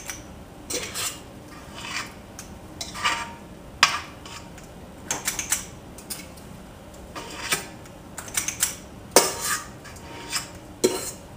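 Metal cookie scoop clinking and scraping as cookie dough is scooped out and dropped, in irregular short strokes, some ringing briefly.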